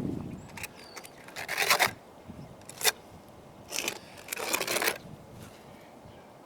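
Trowel scraping roofing mastic across webbing on a flat roof, in four or five short strokes back and forth, with the last near five seconds in.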